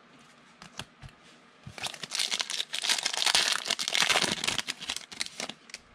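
A foil trading-card pack wrapper being torn open and crinkled by hand: a few light clicks, then about four seconds of dense crinkling and tearing starting nearly two seconds in.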